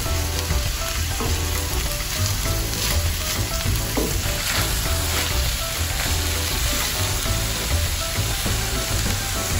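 Milkfish and vegetable filling sizzling in a stainless steel wok as it is stirred and turned with a wooden spatula, with scrapes of the spatula against the pan now and then. The filling is almost done cooking.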